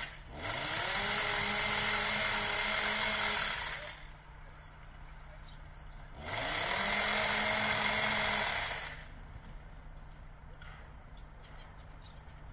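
Horn of an approaching diesel multiple-unit train sounding two long warning blasts, each sliding up in pitch at the start and then holding steady.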